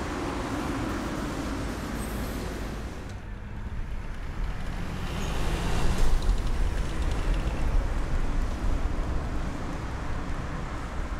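Road traffic noise: a low rumble of vehicles that swells about five seconds in and cuts off suddenly at the end.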